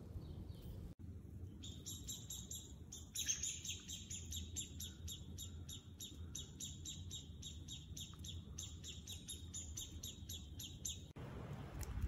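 Common blackbird nestlings begging in the nest: a rapid series of thin, high chirps, about four a second, starting about a second in and stopping shortly before the end.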